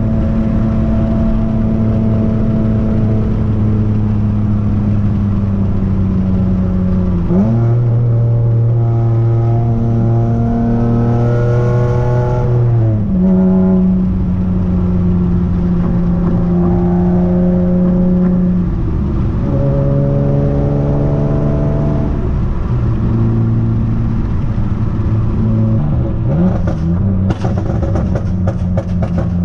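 The 3.5-litre V6 of a 7th-generation Nissan Maxima, converted to a six-speed manual, heard from inside the cabin while driving hard. The engine note holds steady, then climbs as the car accelerates and drops sharply at gear changes, several times over. Sharp clicks and knocks come in near the end.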